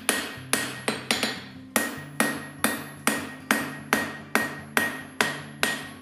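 Hand hammer striking red-hot steel on an anvil at a steady pace of about two blows a second, each blow ringing on. The smith is straightening and squaring up a forged knife blank.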